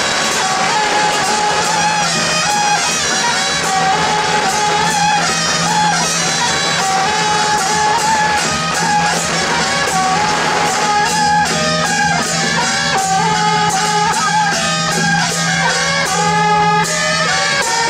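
Street procession band music: small brass horns play a melody over a steady low hum, with frequent drum and cymbal strikes keeping the beat.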